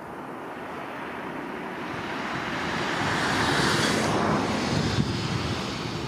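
A car passing by: a rushing noise that builds for about four seconds, peaks, then fades away, with wind buffeting the microphone.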